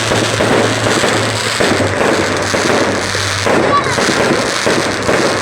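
Fireworks going off in a dense run of overlapping pops and bangs, with no pause between them.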